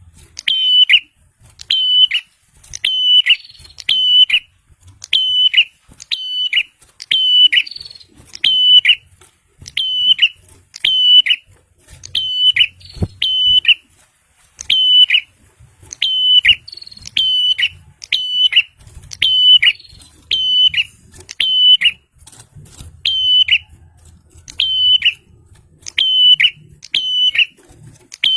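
Prinia (prenjak) calling in quick runs of two or three sharp, high notes, a run about once a second.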